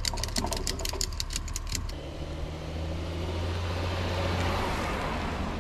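A ratchet strap ratcheting tight on a kayak trailer: a quick run of sharp clicks for about two seconds. Then a Honda SUV towing the small trailer drives past, its engine hum and tyre noise swelling and easing off.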